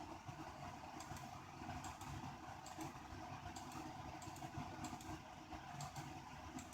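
Low, steady background rumble with a few faint, scattered computer keyboard clicks.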